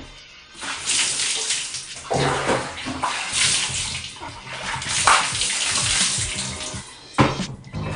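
Running water splashing into a bathtub as hair is wetted under the stream, starting about half a second in.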